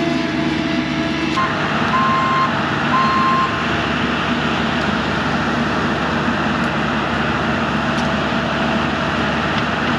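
Mini excavator's diesel engine running steadily under work, with two short electronic beeps about a second apart early on.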